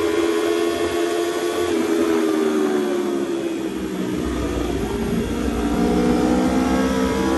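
Aprilia RSV4 RR's V4 engine running under way, its pitch easing down a little midway and then climbing again as the bike accelerates, with wind rush over it.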